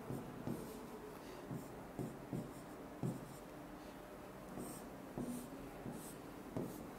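Pen drawing on an interactive display screen: scattered soft taps as the tip meets the surface, with faint scratchy strokes between them.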